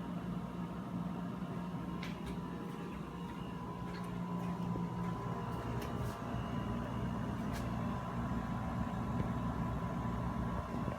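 Panasonic window-type air conditioner running on low fan speed: a steady hum with a faint higher tone. It gets slightly louder about halfway through, and a few light clicks come through.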